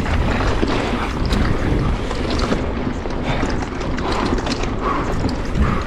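Wind rushing over the camera microphone of a mountain bike descending at speed, with the bike clattering and rattling over rough trail.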